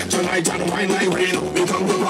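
Loud music with a steady beat and a voice singing over it, played through a carnival sound-system truck.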